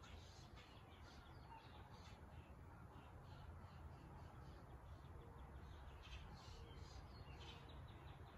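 Near silence: quiet room tone with a low hum and faint, scattered bird chirps.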